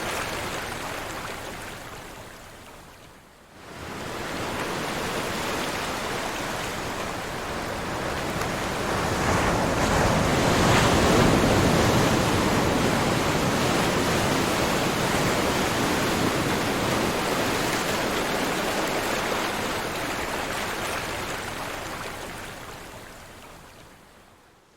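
Ocean waves washing on a shore in a continuous surf noise. The surf fades away about three seconds in, comes back, swells to its loudest around the middle, then fades out at the end.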